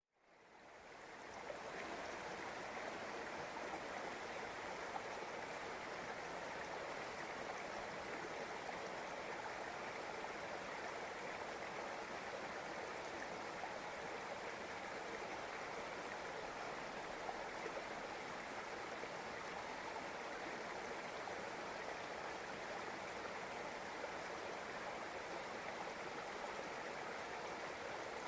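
River water flowing in a steady rush, fading in over the first second or two.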